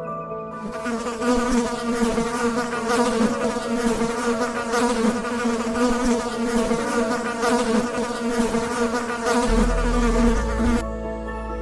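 Insects buzzing: a dense, steady, wavering hum that starts about half a second in.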